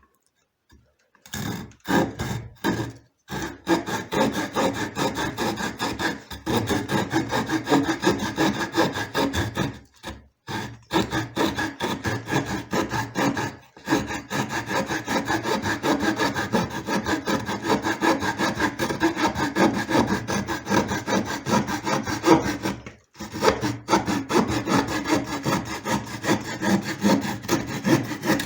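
Small pocket-knife saw blade sawing back and forth in quick, even strokes, about two a second, with a few short pauses between runs of strokes.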